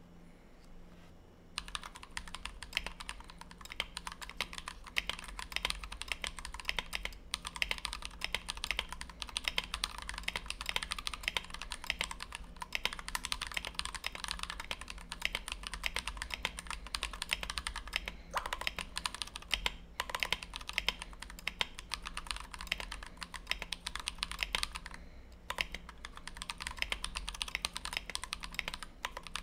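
Fast typing on a Tofu 60 mechanical keyboard with a brass plate, lubed and filmed Everglide Dark Jade linear switches and PBT OEM-profile blank keycaps: a quick, continuous run of keystrokes. It starts about a second and a half in, with a few brief pauses.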